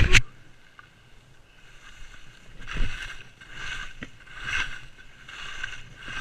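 A sharp thump right at the start, then skis carving turns on packed snow: a swish of edges scraping the snow about once a second.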